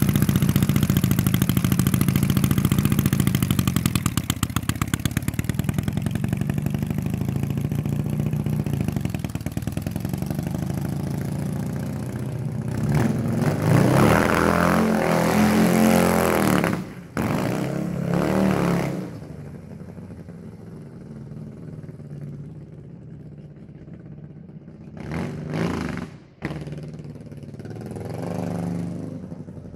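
Dnepr MT10-36 650 cc flat-twin motorcycle engine in a homemade go-kart, running loud close by and then fading as the kart pulls away. A spell of hard revving in the middle cuts off abruptly. Near the end it is quieter and more distant, with two short bursts of throttle.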